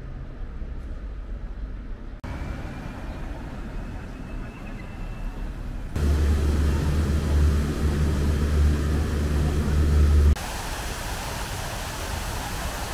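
Paris street ambience with traffic, changing abruptly three times. In the middle, for about four seconds, a nearby vehicle engine gives a loud low rumble.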